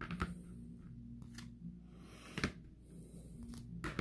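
Rigid plastic card top loaders clicking and tapping as they are handled, set down on a table and butted against each other: a handful of light, sharp clicks, the loudest about two and a half seconds in.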